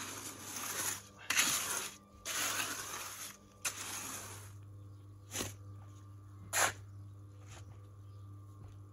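Trowel scraping over stiff black concrete mix in a step form, in rough back-and-forth strokes about once a second. Near the middle the scraping stops, leaving a low steady hum and two sharp clicks.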